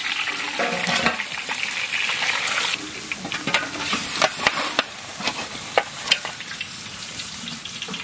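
Vetki fish pieces deep-frying in hot mustard oil in a large wok, a dense sizzle while the fried pieces are lifted out with a metal slotted spoon. About three seconds in the sizzle thins to scattered sharp crackles and pops.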